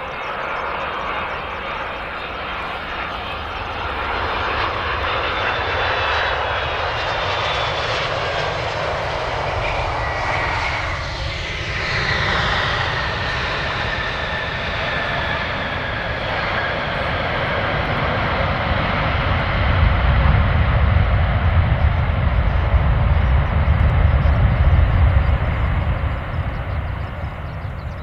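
Boeing 767-300 airliner's twin jet engines during a landing: a steady whine that falls in pitch as the plane passes and touches down. About twenty seconds in, a louder deep rumble builds as reverse thrust is applied on the rollout, then fades near the end.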